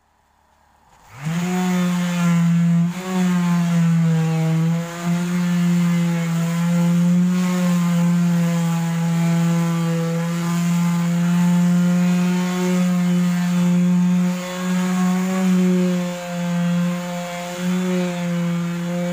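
Electric palm sander switching on about a second in and running steadily as it is worked over a plywood tabletop, its motor hum wavering slightly in pitch and loudness as it moves across the board.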